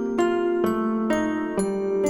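Background music: a gentle lullaby-style tune of bell-like struck notes, one about every half second, each ringing on.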